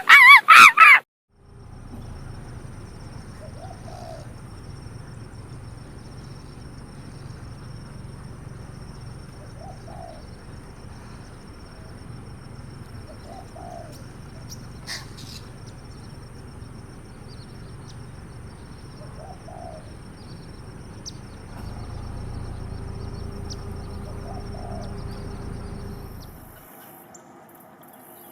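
Faint bird calls, one short call about every six seconds, over a steady low background hum. A loud, rapid series of animal calls cuts off about a second in.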